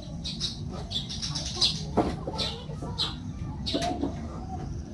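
Birds chirping: short, high calls repeated every half second or so, over a steady low background.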